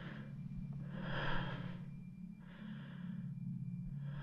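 A person breathing heavily and slowly, four drawn breaths about a second and a half apart, over a low steady hum.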